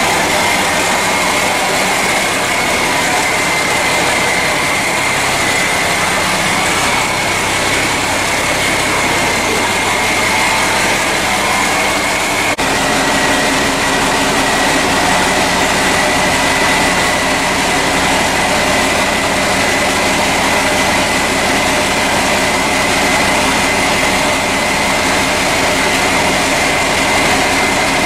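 Vehicle engine running steadily while under way, with a constant high whine over the engine drone. The sound changes abruptly about twelve seconds in.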